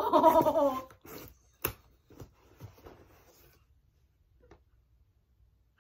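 A cardboard shipping box being opened by hand: the flaps snap once, sharply, about a second and a half in, then rustle lightly a few times. The box sound follows a brief wordless voice sound at the start.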